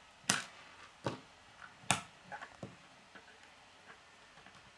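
Plastic K'nex rods and connectors clicking as they are snapped together by hand: four sharp clicks in the first three seconds, with fainter ticks between.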